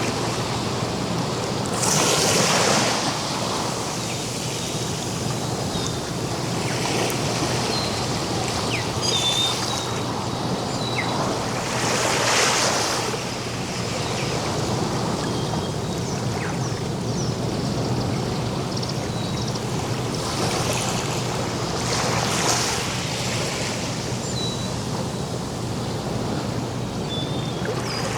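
Ocean surf washing continuously onto a beach, with a wave breaking louder three times, about every ten seconds. Short, high bird chirps come now and then over the surf.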